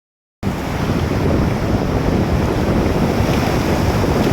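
Ocean surf rushing at the shore, with wind buffeting the microphone; it starts abruptly about half a second in.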